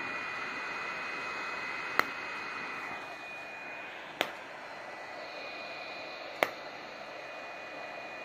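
Handheld IPL (pulsed-light) hair-removal device firing three flashes about two seconds apart, each a sharp click, over the steady whir of its cooling fan with a thin high whine.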